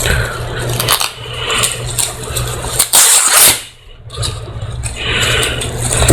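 Taped cardboard package being opened by hand: tape ripping loose and the box knocked and handled, with one loud ripping rush about three seconds in.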